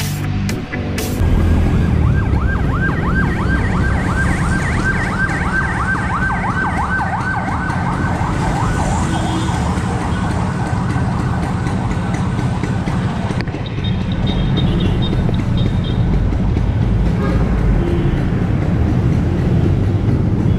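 A rapidly warbling siren-like tone, a few sweeps a second, over a steady low rumble. The warble stops suddenly about thirteen seconds in, leaving the rumble with a few faint high beeps.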